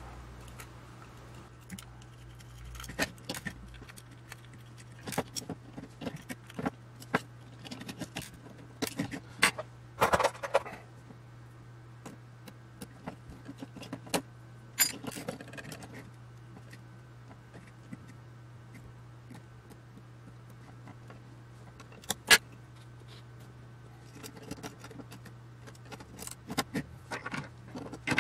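Irregular clicks, clinks and scrapes of hand tools and small metal parts being handled while a screwdriver undoes the retaining screws of illuminated push-button switch modules and the modules are worked out of an aluminium front panel. Two longer scrapes come about a third and halfway through, a single sharp click a little past the middle, and a cluster of clicks near the end.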